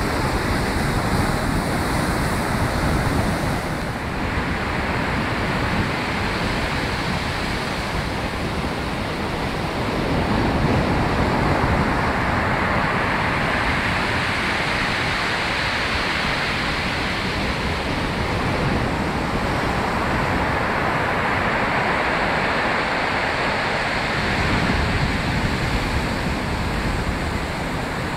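Rough sea surf breaking and washing up the beach in a continuous rush of foaming water, swelling as bigger waves come in, with wind buffeting the phone's microphone.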